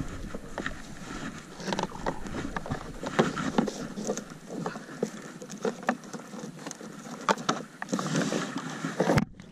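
Wet rope being hauled in hand over hand over a boat's side and piling into the hull: a steady stream of irregular small knocks, rubs and drips of water.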